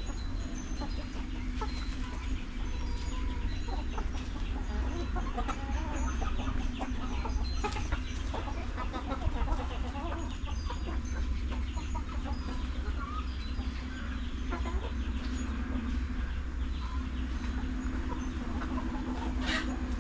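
A flock of chickens clucking and cheeping, many birds calling at once in short overlapping calls over a steady low hum.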